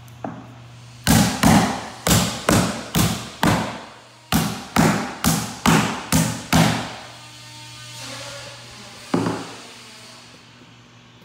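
Hammer blows driving the nails of a wooden carpet tack strip into a hardwood floor: about a dozen quick strikes, two or three a second with a short pause midway, then a single blow near the end.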